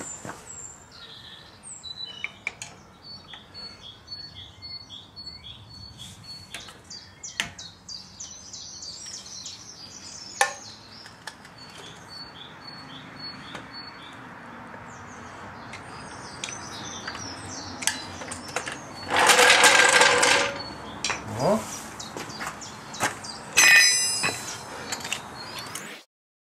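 Birds chirping and singing, with scattered sharp clicks and knocks. About two-thirds of the way through comes a loud rushing burst of about a second and a half, the loudest sound here, and a shorter loud burst follows near the end.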